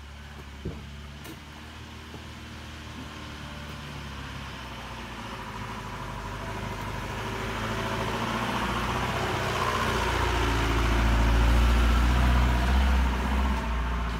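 A car approaching, its engine growing steadily louder over about ten seconds and loudest a couple of seconds before the end.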